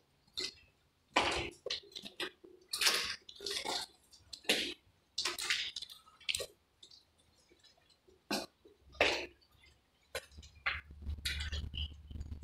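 Slow footsteps scuffing and crunching on a gritty, debris-strewn floor, an irregular step about every second. A low rumble comes in near the end.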